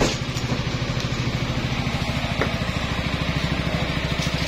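Yamaha XMAX scooter engine idling steadily, with an even, rapid low pulse.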